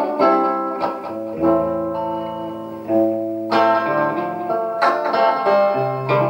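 Electric guitar played with a clean tone: chords struck about every second or so and left to ring, with low bass notes underneath.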